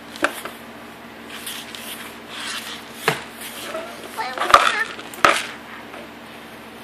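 Soft, wordless voices, with four sharp taps on the plastic high-chair tray and cereal cup; the loudest tap comes about halfway through.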